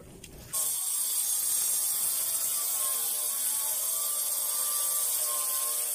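Handheld electric grinder running on granite slab: a steady high-pitched whine that starts suddenly, its pitch dipping and recovering as the disc bears on the stone.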